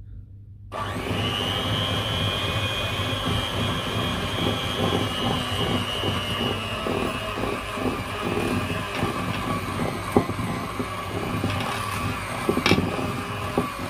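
Electric hand mixer switched on about a second in, its motor whirring steadily as the beaters work flour into creamed butter and sugar in a glass bowl, with a couple of sharp knocks near the end.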